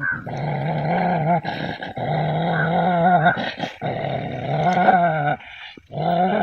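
Dog growling in long, continuous stretches, broken by several short pauses.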